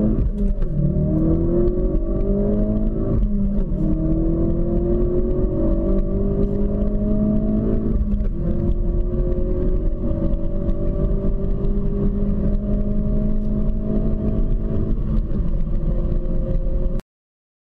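2016 Ford Focus RS's 2.3-litre turbocharged four-cylinder engine accelerating hard at full throttle, its pitch climbing through each gear and dropping back at the upshifts, about four times. The sound cuts off suddenly near the end.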